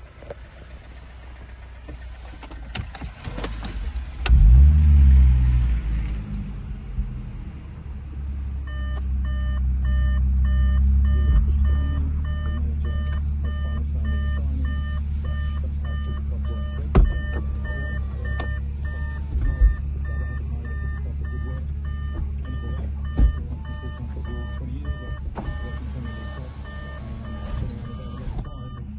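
Audi S5's supercharged 3.0-litre V6, fitted with a Milltek non-resonated exhaust, starting about four seconds in with a brief rev flare, then idling steadily. From about nine seconds in, a dashboard warning chime beeps repeatedly over the idle, and a few sharp knocks are heard.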